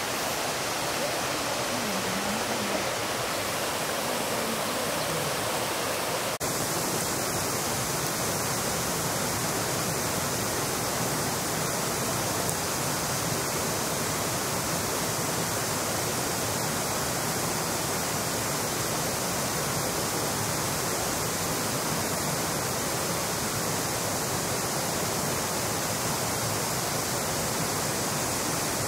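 A steady, even rushing hiss with no distinct events. Its tone shifts slightly about six seconds in.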